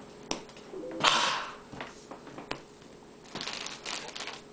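Marshmallows flicked by finger across a wooden table: a few sharp clicks and taps, with a short breathy rush of noise about a second in.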